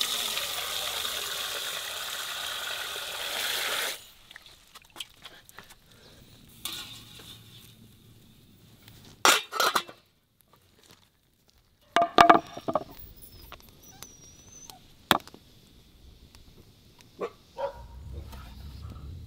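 Kitchen cooking noises: a loud, steady hiss for about four seconds that stops abruptly, then scattered knocks and clinks of pots and utensils being handled.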